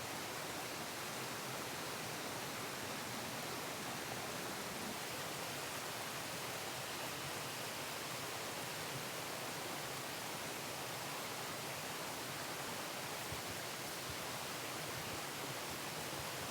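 River water rushing steadily: an even, unbroken noise with no distinct events.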